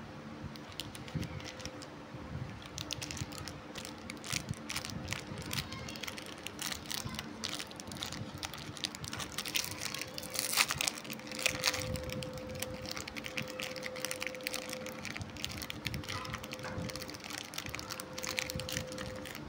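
Shiny plastic biscuit wrapper crinkling and crackling as fingers work it open, in a busy run of sharp crackles that is loudest about ten seconds in.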